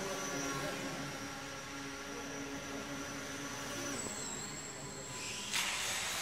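Electric motor spinning a wooden racing propeller on a control-line model aircraft, a steady whine with a hum underneath. About four seconds in the motor cuts out, and about a second and a half later a single sharp knock marks the model touching down on the floor.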